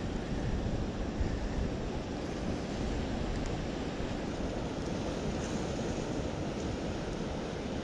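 Steady wind buffeting the microphone over the continuous wash of surf on a stormy shore.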